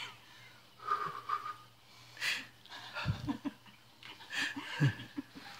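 A woman's breathless, wheezing laughter, coming as short gasps and breathy bursts in fits.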